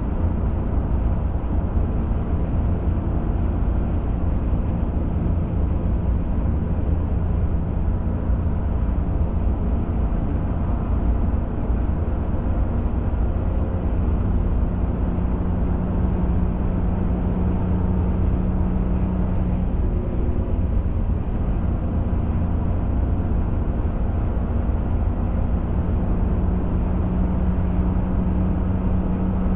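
Pickup truck driving at a steady pace: continuous engine hum over low tyre and road rumble. The engine tone strengthens twice in the second half.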